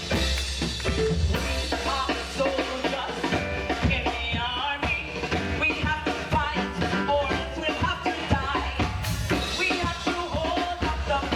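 Live upbeat gospel praise music: a band with a drum kit keeping a steady beat, with singing over it.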